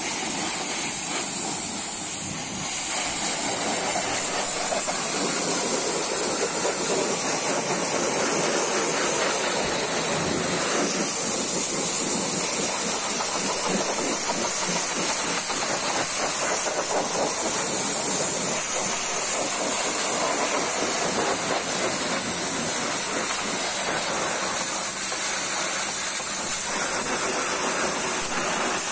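Pressure-washer jet spraying water into a foam-covered engine bay, rinsing the foam off: a steady hiss of spray hitting the engine parts, a little louder from about three seconds in.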